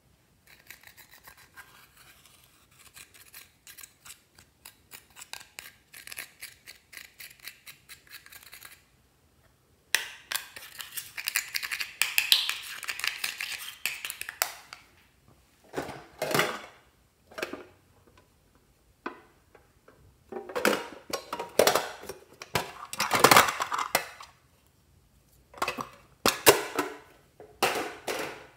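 Pressed eyeshadow being scraped with a pointed plastic tool. Quick, light scratching strokes come first. About ten seconds in, heavier scraping and knocking follow in separate bursts as the crumbled powder is worked out of the compact.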